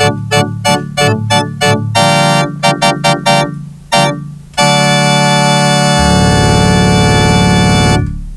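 Electronic keyboard music, organ-like in tone. It opens with a run of quick repeated notes, about five a second, moves into a few slower chords, and ends on one long held chord that cuts off near the end.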